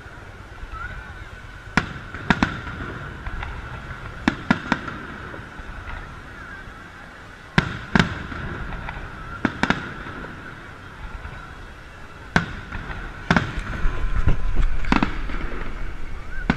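Aerial fireworks shells bursting overhead: about a dozen sharp booms, some in quick pairs, coming closer together and louder near the end.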